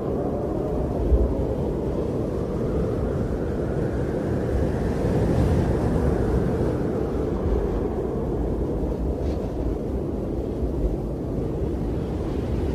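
Blizzard wind blowing steadily, a low rumbling rush with gusts buffeting the microphone and swelling slightly in the middle.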